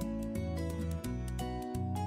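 Background music: a tune of held, pitched notes over a steady, regular beat.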